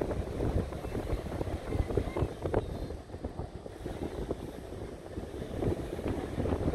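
Wind buffeting the microphone in gusts, with ocean surf behind.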